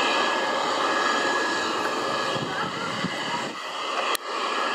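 Jet airliner's turbofan engines running steadily at taxi power, a dense rush with a thin steady whine over it. A single sharp click sounds near the end.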